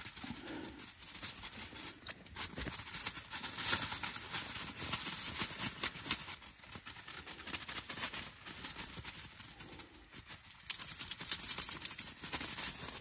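Nylon tent fabric and floor crinkling and rustling as things are handled, with a louder, hissier burst of rustling about two seconds before the end.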